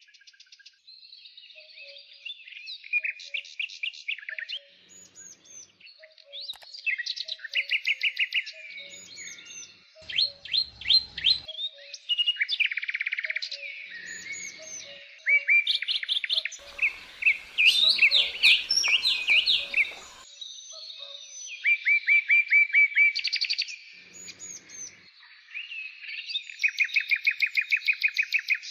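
Birds chirping and singing, several calls overlapping: rapid runs of repeated high notes, trills and quick rising and falling chirps.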